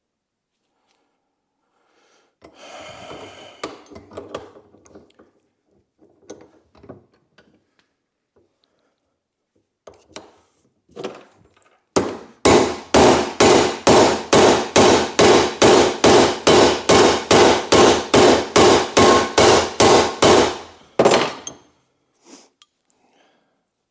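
Hammer blows on the steel of a Volvo 142 door hinge, driving out a stuck, bent hinge pin. First come some scraping and a few light knocks, then about halfway in a fast, even run of about twenty sharp metallic strikes, about two and a half a second.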